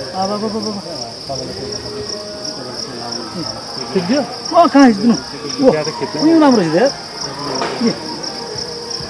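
Insects chirring in a steady, high-pitched drone, with people's voices calling out loudly in the middle.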